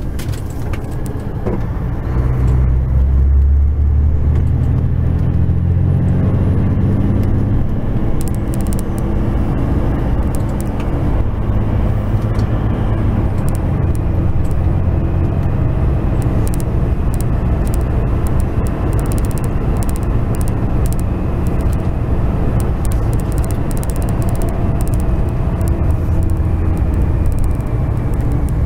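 Truck's diesel engine running, heard from inside the cab as a low, steady drone that shifts in pitch. It gets louder about two seconds in, and scattered sharp clicks and rattles sound over it.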